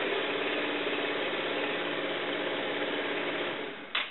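Kymco People S 200 scooter engine idling steadily, run for a few seconds after an oil change to spread the fresh oil. It dies away near the end, followed by a single sharp click.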